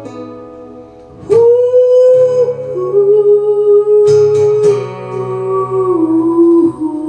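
Acoustic guitar strummed under a man's voice singing long held notes. A chord rings out and fades over the first second, then a fresh strum brings in the voice, which holds one note and steps down to lower ones while the guitar is strummed again.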